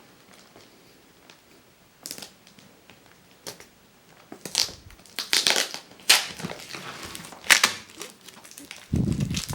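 Product packaging being handled and opened: repeated bursts of crinkling and rustling that begin about two seconds in, with a low thump near the end.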